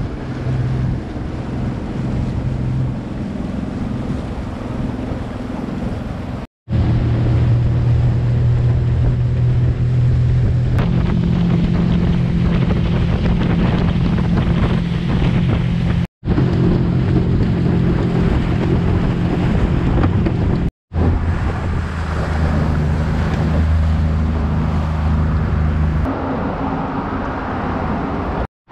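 Small skiff's outboard motor running steadily at speed, with wind on the microphone and water rushing past the hull. The sound cuts out for an instant three times, and the engine note shifts after each break.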